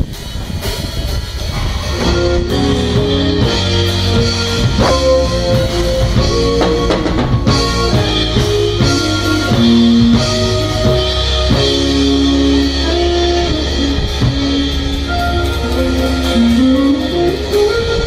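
Live band jamming: drum kit, keyboards with the bass line played on the keys, and guitar. A sustained low bass runs under the chords, and a note slides upward near the end.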